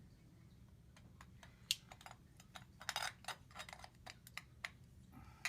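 Irregular small clicks and clatter of an espresso machine's metal filter basket and portafilter handle being handled, as someone tries to work the basket out of the handle. The clicks start about a second in and bunch together around the middle.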